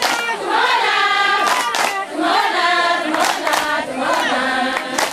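A group of women and children singing together in a call-and-response style chant, with hand claps at uneven intervals.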